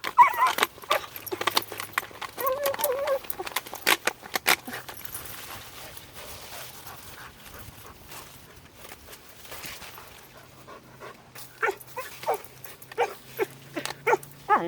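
Fox vocalizing while trying to get at a chipmunk: a wavering whine in the first few seconds, then a run of short, repeated yips near the end, with scattered sharp clicks between.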